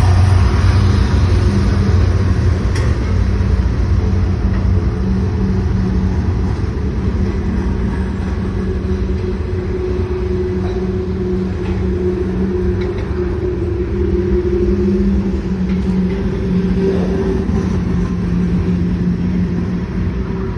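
Diesel locomotives of a Norfolk Southern freight train running, a steady loud rumble with a low engine hum.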